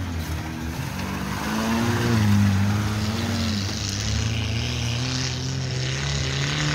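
Mitsubishi Pajero's engine running under load as the SUV drives off through mud and snow, the revs wavering up and down.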